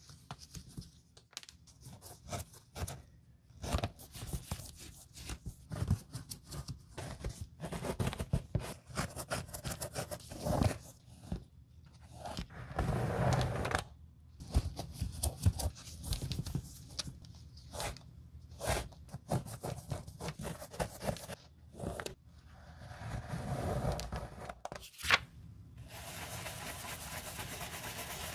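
Shoelaces pulled and slid out through the metal eyelets of a leather sneaker, with scraping, rustling and small taps as gloved hands handle the shoe. Near the end a bristle brush starts scrubbing the shoe with a steady rubbing.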